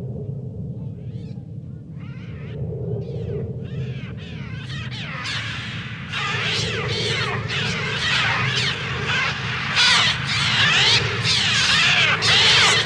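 A flock of seagulls screeching, the cries sparse at first and building into a dense, loud mass of overlapping shrieks, over a steady low rumble.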